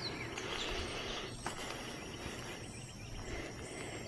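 Quiet outdoor background with a faint steady insect hum and a few faint, high bird chirps, and a single light click about a second and a half in.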